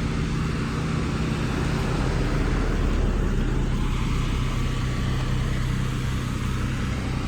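A car driving at a steady pace: an even engine hum and road noise.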